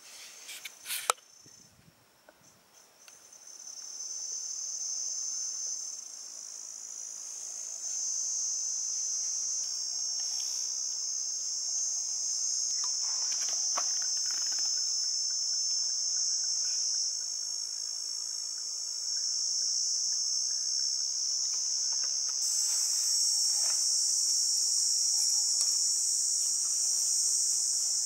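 Insect chorus, a steady high-pitched chirring that comes in about three seconds in and carries on with small jumps in level. A few sharp clicks come in the first second.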